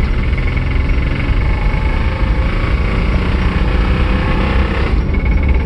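A 1998 Chevy Blazer's 4.3 Vortec V6 running hard, loud enough that it hurts the ears, with a change in its sound about five seconds in. It is a worn engine with the typical 4.3 Vortec knock, barely making oil pressure.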